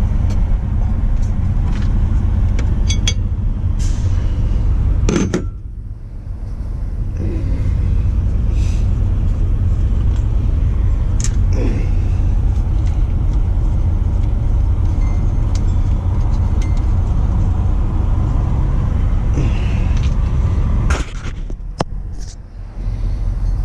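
A steady low rumble, with scattered clicks and knocks as the serpentine belt is worked off the DD15 engine's pulleys by hand.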